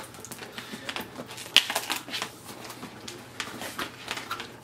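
Cardboard PR box being opened and handled: scattered rustles and light taps, the sharpest about one and a half seconds in.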